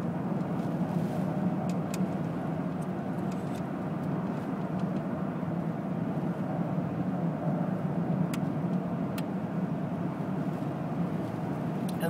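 Steady road noise heard inside a moving car's cabin: engine and tyres running on a snow-covered road. A few faint ticks come through now and then.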